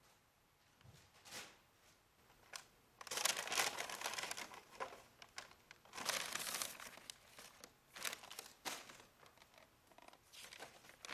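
A paper lunch bag crinkling and rustling in several bursts as it is opened and rummaged through, loudest a few seconds in. Near the end comes lighter rustling as a folded paper note is handled.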